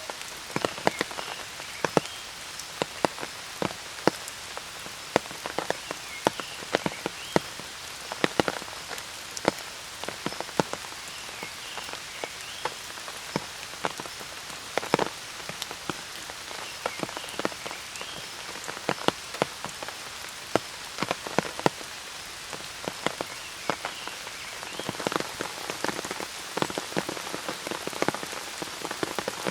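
Steady rain: many distinct drops tapping sharply close by over a constant hiss, with a few faint short calls now and then.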